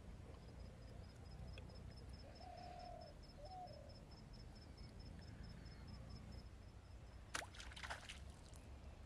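Faint pond-side ambience with a low rumble and a fast, high-pitched ticking of about six a second that stops about seven seconds in. A short two-note call comes about two and a half seconds in, and a brief watery splash rushes up near the end.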